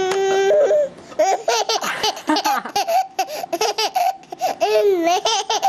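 A young child's high-pitched voice: a held squeal, then a run of quick laughing bursts, with another wavering squeal near the end.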